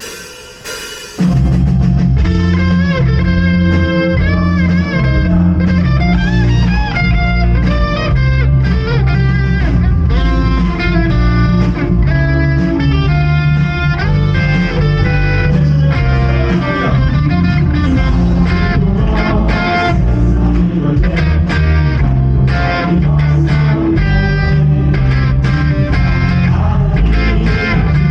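Live church worship band starting a praise song: the full band with electric guitar and bass guitar comes in about a second in and plays steadily, with a heavy bass line.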